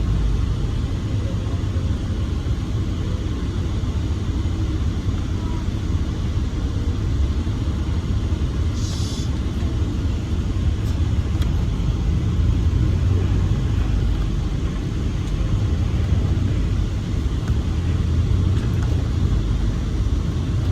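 Steady low rumble of an MCI coach bus heard from inside the cabin while it drives, with a brief hiss about nine seconds in.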